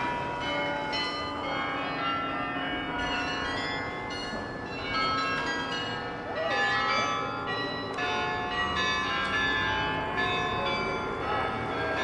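The bells of the Dom Tower in Utrecht ringing: many bells of different pitches strike one after another, and their tones ring on and overlap.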